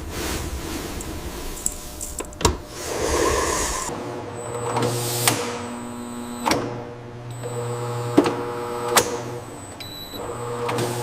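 Food-processing machinery running with a steady hum and a few short, sharp clanks every second or two, along with some brief hissing swells. The low rumble changes to a steadier, more tonal hum about four seconds in.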